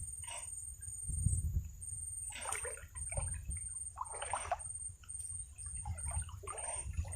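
Water splashing and sloshing in short bursts, about four times, a couple of seconds apart.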